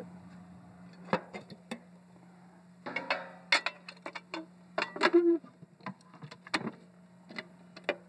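Steel firebox door of a home-built wood gasification boiler being swung shut and latched: a string of metal clanks and clicks, loudest in the middle, over a steady low hum.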